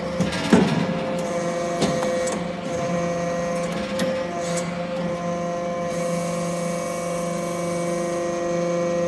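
Hydraulic scrap-metal briquetting press running: a steady hum from its hydraulic power unit, with a few short knocks from the press, the loudest about half a second in.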